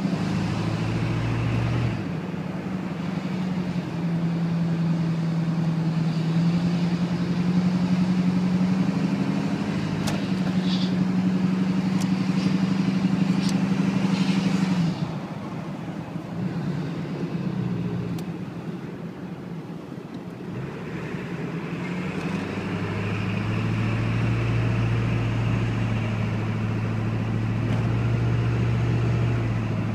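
A 1997 Ford F-250's 7.3 L Powerstroke turbo-diesel V8 running steadily. Its engine speed shifts between a few held levels: higher through the first half, dropping about halfway, and settling to a lower steady note for the last third.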